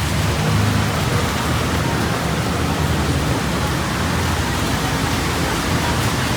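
Steady hiss of rainfall over a street, with the low rumble of road traffic underneath.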